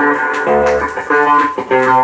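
Recorded pop music with guitar and bass guitar playing to a steady beat, from a various-artists LP.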